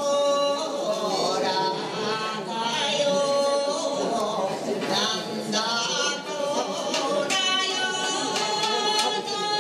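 Unaccompanied singing, with long held notes that glide from one pitch to the next.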